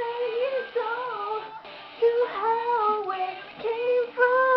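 A recorded song playing, with a sung vocal melody of wavering, gliding notes in short phrases.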